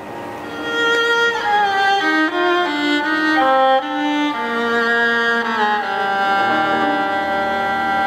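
Violin playing a gliding melodic line over sustained digital piano chords, settling into a long held chord about six seconds in.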